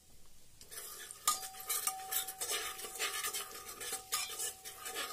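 A metal ladle stirring spices in hot ghee inside a pressure cooker, scraping and clinking against the pot over and over, with a light sizzle. About a second in, a steady ringing tone joins the scraping.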